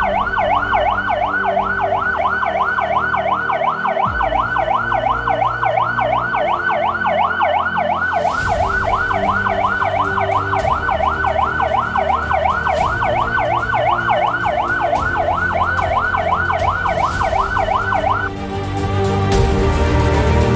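Electronic alarm siren sounding from a horn loudspeaker on a steel lattice tower, warbling rapidly up and down about three times a second: the base's red-alert alarm. It cuts off suddenly about 18 seconds in, and music rises after it.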